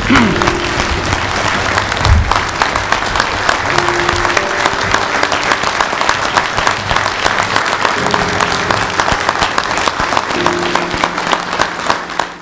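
Large audience giving a standing ovation: loud, dense, steady clapping from many hands.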